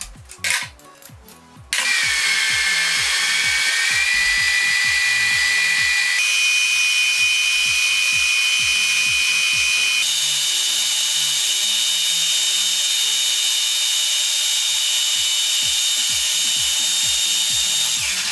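Restored metal lathe running with a loud, steady high-pitched whine that steps up in pitch three times, after a few clicks.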